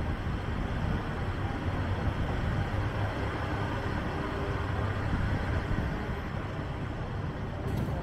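Steady low rumble of road traffic and outdoor city noise, with no distinct single event.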